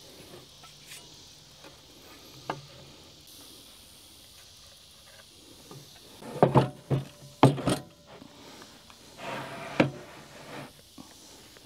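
Wooden knocks and clatters, several sharp ones in quick succession about six to eight seconds in, then a short scrape, as a timber brace is handled and set against a miter saw, with a few lighter clicks before.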